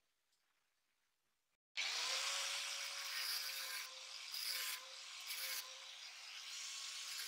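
Angle grinder running with a steady motor whine, its abrasive disc grinding the rusty steel tang of a sword clamped in a vise. It cuts in abruptly about two seconds in, after near silence, and its level dips a few times as the disc meets and leaves the metal.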